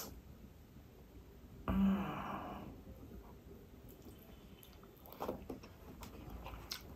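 Fingers mixing cooked rice on a banana leaf: faint soft squishing with a few light clicks. About two seconds in comes a brief, louder pitched sound that fades over about a second.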